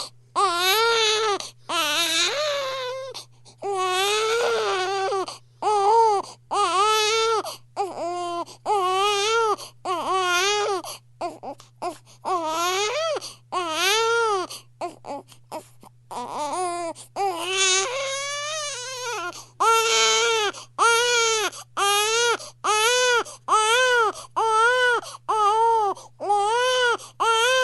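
Baby crying: a long run of short wails, about one a second, each rising and falling in pitch, with brief gaps between.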